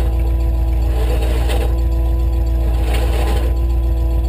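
Engine idling steadily, a constant low drone with no change in speed.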